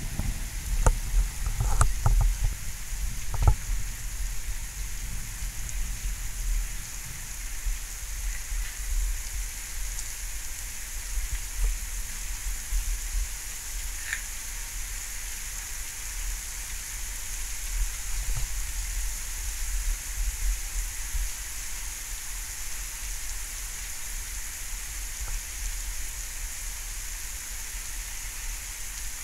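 Steady rain in a thunderstorm, heard as an even hiss over a low rumble, with a few sharp taps and knocks in the first four seconds.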